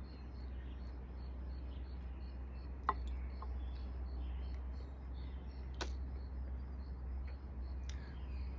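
Outdoor ambience: a high chirp repeating about three times a second over a low rumble, with two sharp clicks, about three and six seconds in.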